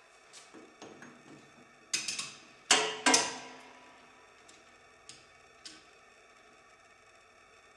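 Irregular sharp clicks and knocks of small hard parts, several light ones early, a cluster of loud ones about two to three seconds in, then a couple of lighter clicks.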